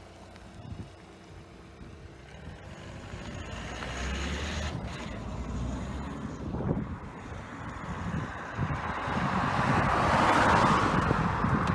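A train approaching at speed: a rushing rumble of wheels on rail that grows steadily louder and is loudest near the end, with wind buffeting the microphone.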